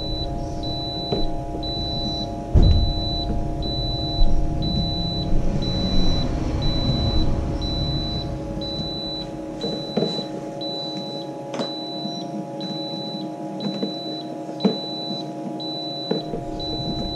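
Egg incubator alarm beeping steadily, about two high beeps a second, set off while the incubator is open, over the steady hum of the incubator's fan. Light clicks of quail eggs being handled and set down on the plastic floor come through now and then.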